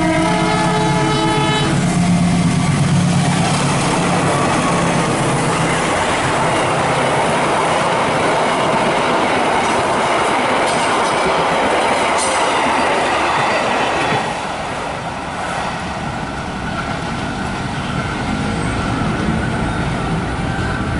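An express passenger train passing at speed. Its locomotive horn sounds in the first two seconds, then the coaches give a steady rumble and wheel clatter. The sound drops off about fourteen seconds in.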